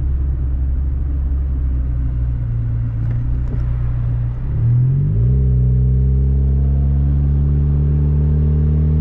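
Honda Civic wagon engine running with no muffler, a loud exhaust drone heard from inside the cabin. About halfway through the note dips and changes pitch, then holds steady and creeps slowly higher as the car pulls on.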